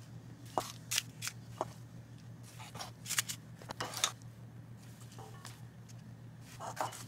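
Metal spoon dropping thick muffin batter into paper-lined muffin cups, with scattered short taps and scrapes of the spoon, over a low steady hum.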